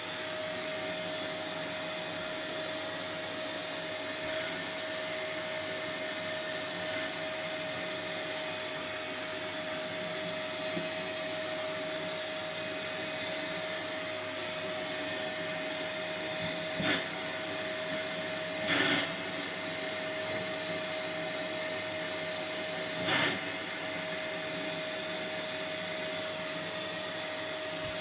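Vacuum cleaner running steadily with a constant whine as it is run over a cat's fur. A few brief louder noises come about two-thirds of the way through and again a little later.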